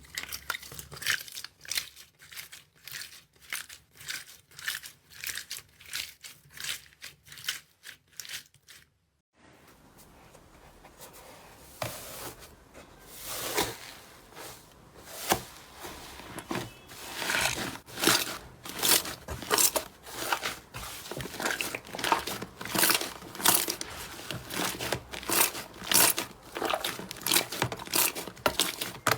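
Slime being squeezed and pressed by hand, giving rapid crackling and popping clicks. The sound drops out briefly about nine seconds in, and the crackling comes back louder and denser.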